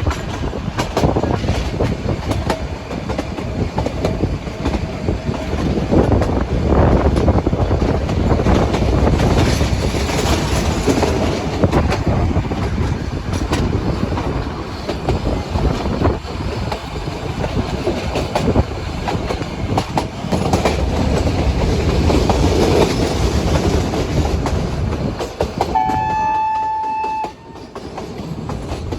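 Nilgiri Mountain Railway train running on its metre-gauge track, with wheels clattering over rail joints and carriages rattling. One short horn note sounds near the end.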